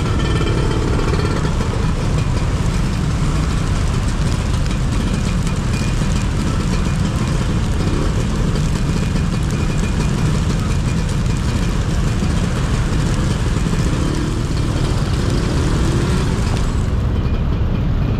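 Steady riding noise from a motorbike in city traffic in the rain: engine and tyre hiss on the wet road with surrounding vehicles. The upper hiss thins out near the end.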